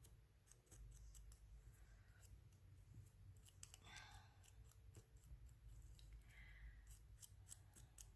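Scissors cutting paper: a faint run of small, irregular snips, as a small shape is trimmed out.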